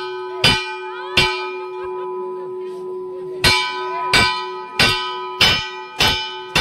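Temple bell rung repeatedly by hand, each stroke ringing on into the next. Two strokes come, then a pause of about two seconds, then a steady run of strokes a little over half a second apart.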